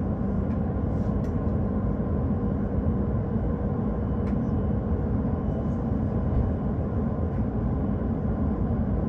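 Steady interior noise of a Joetsu Shinkansen passenger car: a constant low rumble with a faint even hum through it.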